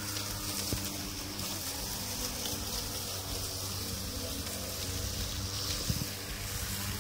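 Kobalt 16-inch 40-volt cordless electric push mower running with a steady motor hum, its blade cutting and mulching grass as it is pushed along.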